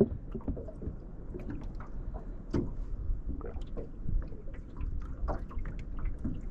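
Water lapping and sloshing against a small aluminium boat's hull, with scattered light knocks and clicks.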